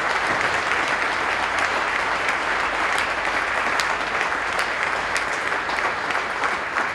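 A roomful of people applauding: steady, dense clapping from many hands.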